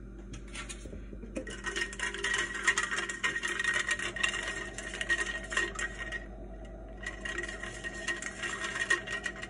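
Ice cubes rattling and clinking in a tumbler as an iced coffee is stirred with a straw, in two bouts with a short pause between them.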